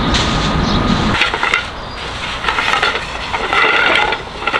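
A steady low rumble that cuts off about a second in, then scattered light knocks and clatter of objects being handled.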